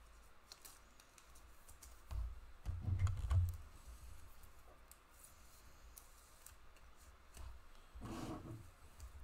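Trading cards being handled at a table: small clicks and scrapes as cards slide against each other, with a cluster of dull knocks, the loudest sound, between about two and three and a half seconds in, and a smaller one near the end.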